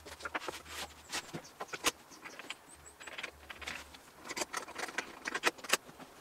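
Scattered light knocks, taps and scrapes of a long wooden homemade saw guide being laid on a sheet of board and shifted into line.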